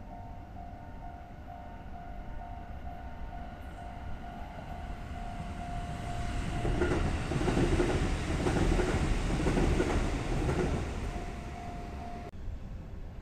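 KiHa 75 diesel railcar passing close below, its engine and wheels clattering over the rail joints, building to loudest as it goes by and then fading. A thin beeping tone repeats about twice a second in the background, and the sound cuts off suddenly near the end.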